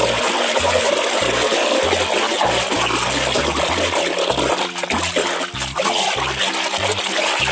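Hand swishing and splashing through a basin of foamy soapy water, scrubbing a muddy toy: continuous sloshing and splashing.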